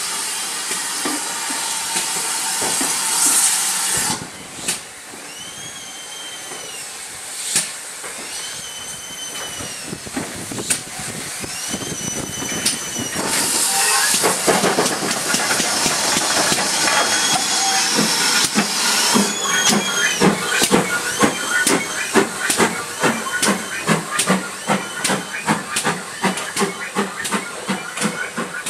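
GWR small prairie tank locomotive 5526 blowing off steam with a loud hiss, then starting away. Its exhaust beats come ever quicker, reaching about three a second near the end, under a second burst of steam hiss.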